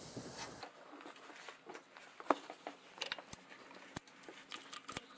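Faint, scattered light clicks and taps of hands handling parts around an engine's spark plug well and wiring harness.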